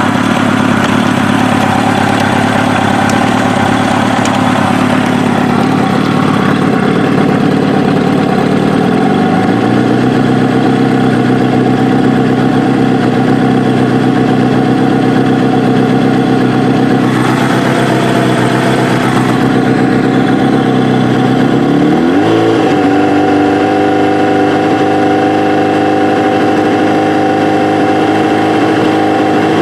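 Kawasaki ZX-7R inline-four with Keihin FCR carburettors running in first gear on a rear stand, with no load on it. The throttle is held at small steady openings, and the engine speed steps up three times, at about 9 seconds, about 22 seconds and again near the end, from roughly 1900 to over 3000 rpm.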